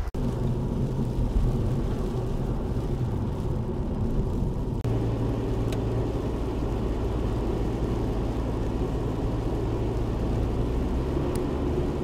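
Steady low engine hum and tyre noise heard from inside a vehicle on a snow-covered road. The hum shifts abruptly about five seconds in.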